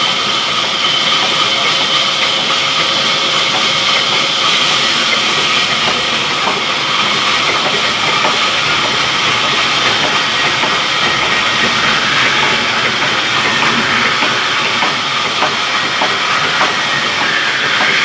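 Large belt-driven band saw ripping a long mango wood plank lengthwise: a loud, steady hiss of the blade cutting through the wood over the running machine, with a faint high whine and small ticks.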